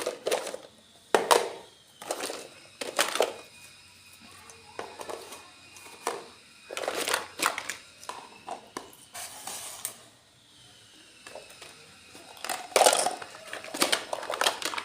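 Irregular crinkles, taps and clicks from packaging and small plastic items being handled while a miniature toy kitchen set is unboxed.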